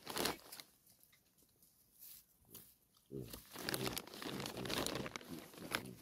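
Baboons eating: a sharp crunch right at the start and a few soft clicks. Then, from about three seconds in, a low voice sounds almost without a break.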